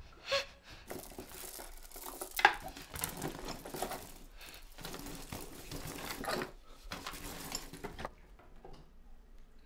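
A short muffled moan through a taped-over mouth, then rustling, clattering and clicks of things being rummaged through in a dresser drawer, with one sharp knock about two and a half seconds in; it quietens near the end.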